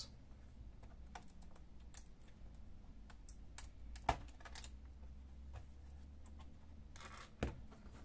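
Faint scattered clicks and taps of gloved fingers on a laptop's plastic case and ribbon-cable connector latches, over a low hum; a sharper click about four seconds in and another near the end.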